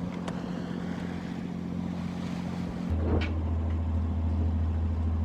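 A sailboat's engine running steadily, its hum growing louder and deeper about three seconds in, with a brief squeak at the same moment.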